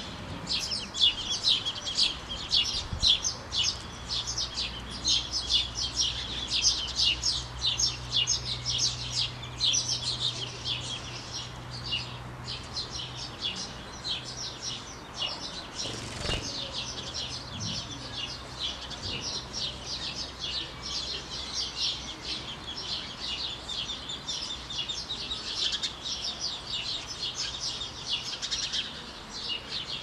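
Ducklings feeding from a dish of dry mash: a dense, fast patter of small high clicks as their bills peck and rustle through the feed.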